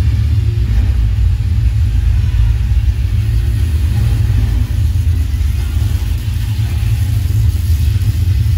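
Action-film soundtrack played loud through a 2008 Philips 120 W home-theatre system and heard in the room: a deep, steady bass rumble with little above it.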